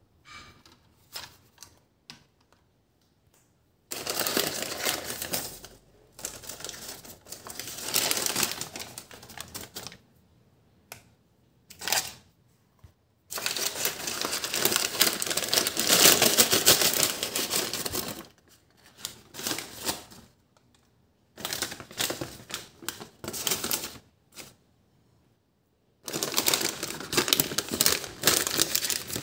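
Paper takeaway bags rustling and crinkling as they are opened and fried chicken pieces are tipped out onto a plate. The sound comes in several crackly bursts of a few seconds each, with short pauses between them.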